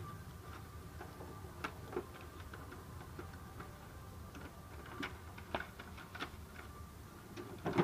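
Irregular light clicks and rustling as paper packing strips are pulled out of the opened cartridge bay of a new HP LaserJet M28a laser printer, its plastic parts clicking as they are handled, with a louder knock near the end.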